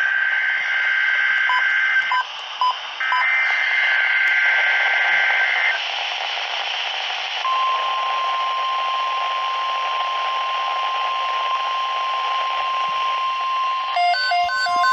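NOAA Weather Radio broadcast over steady static hiss: two bursts of the warbling two-tone SAME digital header, then the steady 1050 Hz warning alarm tone that signals a new alert. Near the end, a rapid two-tone beeping joins the alarm tone.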